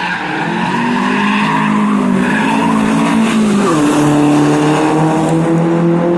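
Rally car engine running hard at high revs, its pitch dropping sharply about three and a half seconds in, then holding and slowly climbing again as it pulls away.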